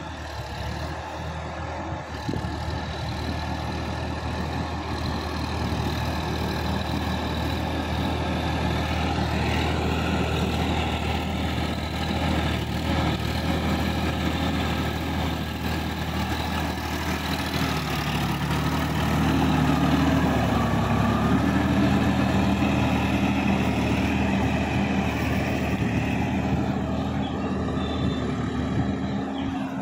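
Sonalika DI-50 RX tractor's diesel engine running steadily as the tractor works through a flooded paddy field, growing louder over the first few seconds. About two thirds of the way through, its note rises and gets stronger.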